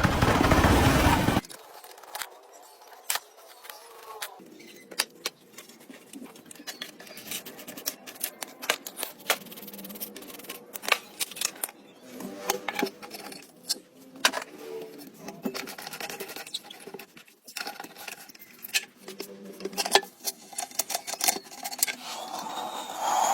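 A loud rush of noise for the first second or so, then irregular sharp clicks, taps and clinks of tools and metal parts being handled during tractor engine repair work.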